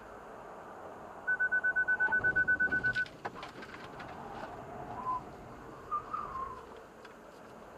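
Inside a Hyundai Ioniq Electric's cabin, a quick run of high electronic warning beeps, about nine a second, lasting under two seconds over steady road and tyre noise. Later come short tyre squeals as the car corners.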